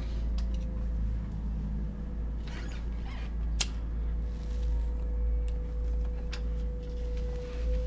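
A lighter flicked once with a sharp click about three and a half seconds in, followed by a brief hiss as a rolled joint is lit, over a low steady drone with a faint higher tone.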